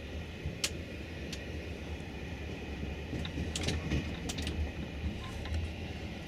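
Sleeper train running, heard from inside the carriage: a steady low rumble with a few short, sharp clicks and rattles scattered through it.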